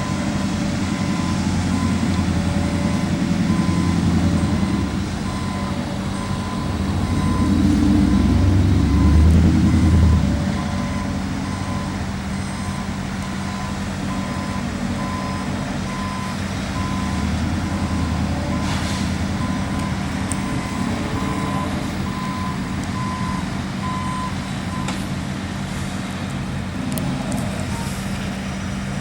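A heavy truck's reversing alarm beeps about once a second on the concrete pour site, over diesel engine rumble that swells twice in the first ten seconds. The beeping stops near the end.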